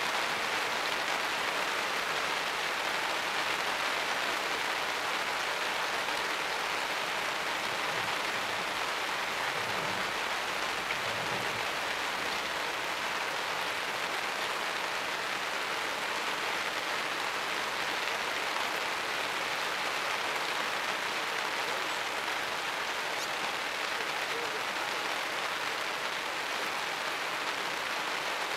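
Steady rain falling on forest foliage, an even hiss with no breaks.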